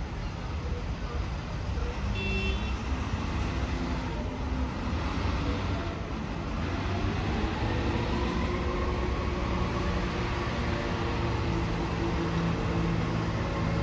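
Embraer E170 regional jet's twin turbofan engines at takeoff power during the takeoff roll: a low steady rumble with a whine that rises in pitch and grows louder from about halfway through.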